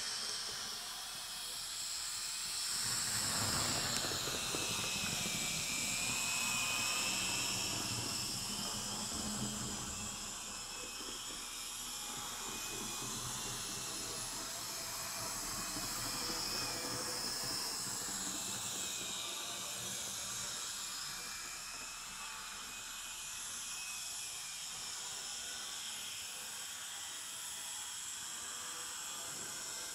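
Z-scale model train running on its track: the locomotive's tiny electric motor whines high, its pitch drifting up and down, over a steady hiss, with a low rumble that is strongest in the first third.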